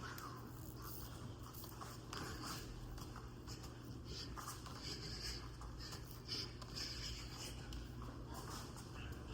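Faint, scattered scuffs and swishes of a boxer shadow boxing, from footwork and punches thrown in the air, over a steady low hum.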